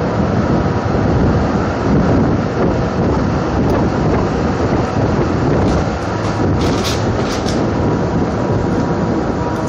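Steady loud rumble of a car ferry underway, heard on its car deck: engine and hull drone mixed with wind buffeting the microphone, and a few sharp clicks about seven seconds in.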